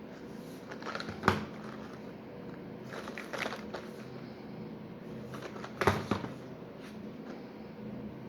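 Packaging being handled while unboxing a Nespresso order: short bursts of knocks and rustling about a second in, around three seconds and near six seconds, over a steady low hum.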